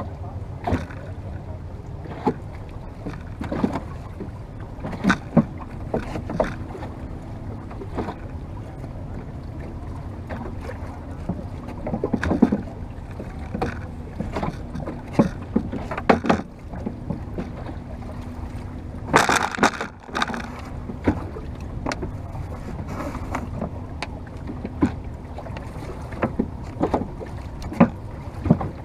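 Water slapping and splashing against the bow of a wooden boat under way, in irregular strokes every second or so over a steady rush of wind and water. About two-thirds through comes a louder, longer splash.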